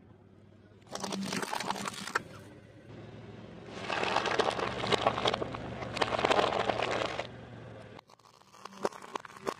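A car tyre rolling over a head of cabbage, the leaves cracking and crunching under its weight in a dense run of crackles lasting about three seconds, after a shorter crunching burst about a second in. Only a few scattered clicks are heard near the end.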